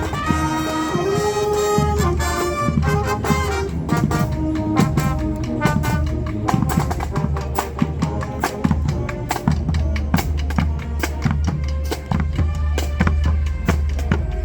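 Marching band playing: brass holding sustained chords for the first few seconds, then a driving drumline with rapid snare strokes and bass drum under the horns.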